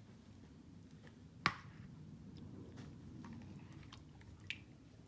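Faint sticky squishing of a slime glue mixture being stirred in a mixing bowl, with small ticks and two sharp clicks, the louder about a second and a half in and a smaller one near the end.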